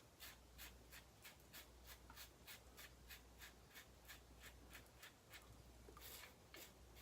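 Faint razor strokes scraping through lathered stubble, a quick regular series of short scrapes at about three a second.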